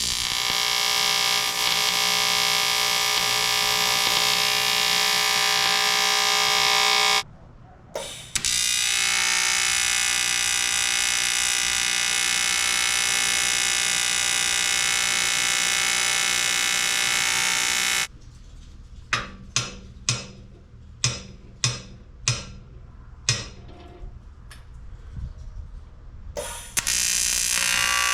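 AC TIG welding arc on aluminium tubing, buzzing steadily in two long runs, then a string of short tack-weld buzzes, then a steady buzz again near the end.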